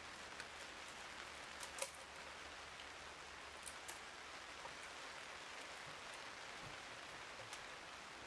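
Hand bit brace boring into a timber beam: a steady soft rasp of the auger bit cutting through the wood, with a few small clicks, the sharpest about two seconds in.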